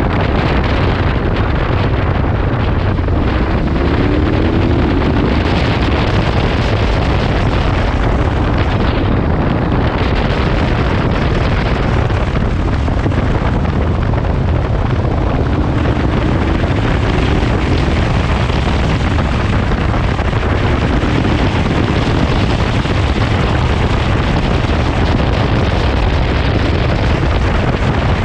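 A KTM 1290's V-twin engine running steadily at road speed with wind rushing over the microphone. Its pitch rises briefly a few seconds in and again past the middle.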